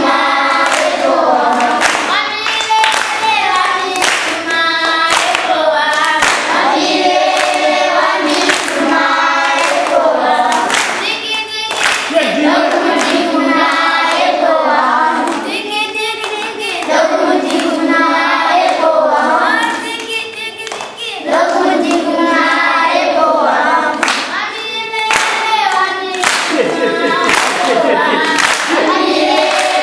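A group of school children singing together in chorus, with sharp strokes keeping a regular beat.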